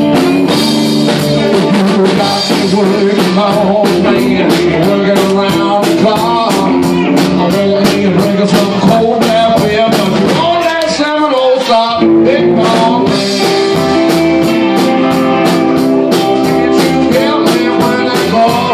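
Live blues band playing: drum kit keeping a steady beat with electric guitar and other instruments over it.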